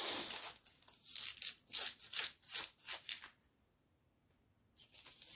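Plastic packaging of a paint-by-numbers kit crinkling as it is handled, in a string of short rustles over about three seconds, with a few fainter ones near the end.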